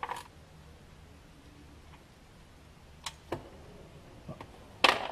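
A few scattered, sharp metallic clicks and taps of a socket wrench working the oil drain plug of a car's sump, the loudest near the end.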